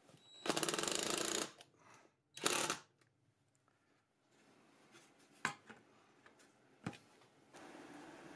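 A handheld power tool runs in two short bursts, about a second and then half a second, with a fast rattling rhythm. Two sharp knocks follow later.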